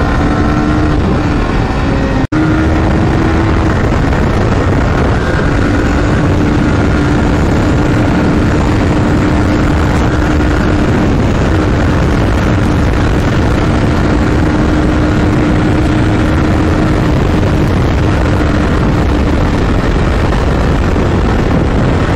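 Wind rushing over the microphone of a riding Yamaha R15 V4, with its single-cylinder engine holding a steady note at cruising speed. The sound cuts out for an instant about two seconds in.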